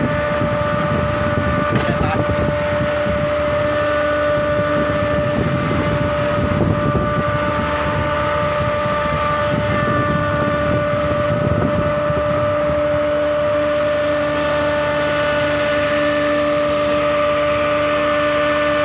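A tuna longline fishing boat's engine running steadily, a constant hum with several fixed tones, over a low rushing noise that eases off about two-thirds of the way through.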